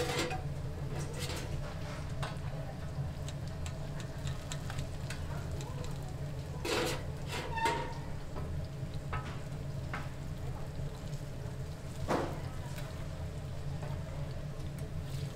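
Mung-bean pancakes sizzling as they fry in hot pork lard on a flat griddle, over a steady low hum. A few sharp scrapes and clicks come from metal spatulas pressing and cutting the pancakes on the griddle, the clearest about seven and twelve seconds in.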